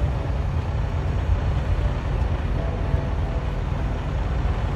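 Steady low rumble of idling diesel semi-truck engines.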